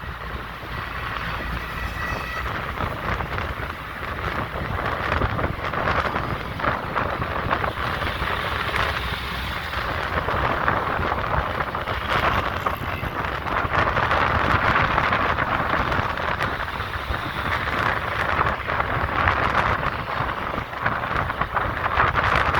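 Steady noise of busy highway traffic, engines and tyres, with no single event standing out.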